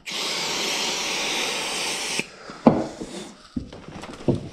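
Aerosol can of brake cleaner spraying in one steady hiss for about two seconds, cutting off sharply, followed by quieter rubbing as a rag wipes the tyre.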